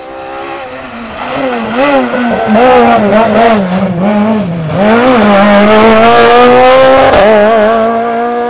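Rally car's engine revving hard on a stage, the pitch swinging up and down again and again with throttle and gear changes as the car comes closer and gets loud, then easing off and fading near the end.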